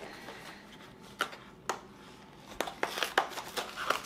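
Packaging being torn and crinkled open by hand: two sharp crackles, then a quicker run of crackling and rustling from about two and a half seconds in.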